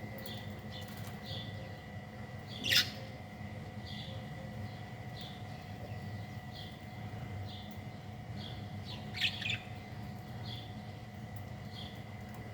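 A bird chirping over and over at an even pace, with two louder, sharper calls or flutters, one about three seconds in and one about nine seconds in. Under it runs a steady low hum and a faint steady high tone.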